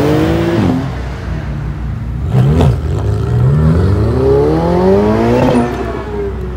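Ferrari 488 twin-turbo V8 engines accelerating hard as the cars pull away one after another, the revs climbing in long rising sweeps. A sharp crack and a brief drop and recovery in pitch come a little over two seconds in.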